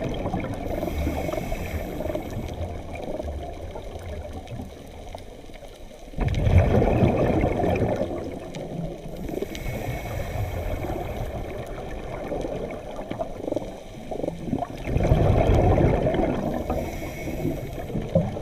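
Scuba diver's breathing heard underwater through the regulator: a steady underwater wash with two loud gurgling surges of exhaled bubbles, the first about six seconds in and the second about nine seconds later.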